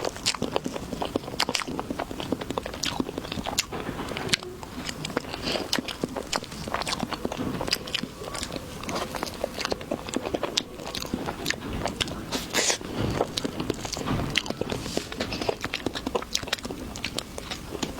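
Close-up mouth sounds of a person biting into and chewing fresh pineapple: irregular wet, crunchy clicks and smacks throughout.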